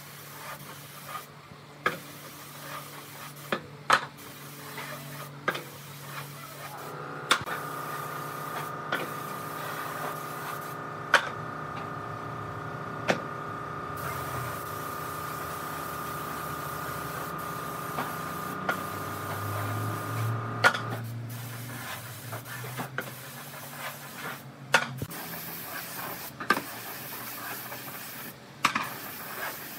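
A woodworking machine's motor runs steadily for about fourteen seconds in the middle, amid scattered knocks and clicks of wood being handled.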